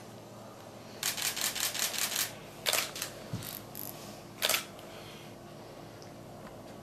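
Camera shutter firing in rapid bursts: a quick run of about eight clicks a second starting about a second in, then a few shorter bursts, the last one near the middle.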